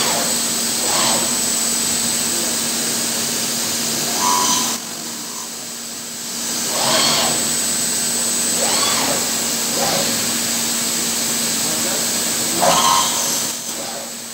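MATEC 30 HV 5-axis machining center running: a steady high whine and hum from the machine, with several short whines that rise and fall as the spindle head traverses its axes. The noise drops off suddenly about five seconds in and again near the end.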